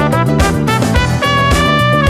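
Instrumental break of an upbeat swing-style song: held brass notes over a bass line and a steady beat, with no singing.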